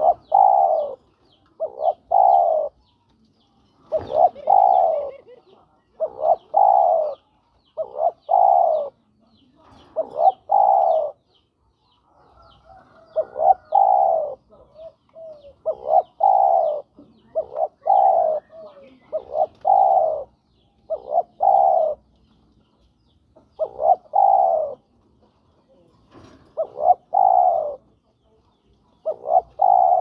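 Spotted dove (tekukur) cooing over and over, a phrase of two or three notes about every two seconds: the male's call to attract a female. Faint chirps of small birds sound behind it in the first few seconds.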